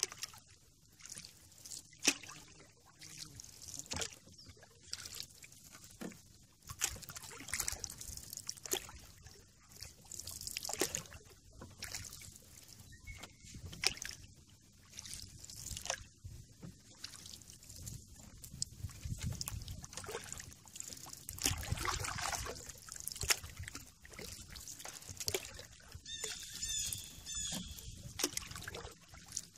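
Canoe paddle strokes in calm river water: irregular dips and splashes, with water trickling and dripping off the blade between strokes. A bird calls a quick run of repeated chirps near the end.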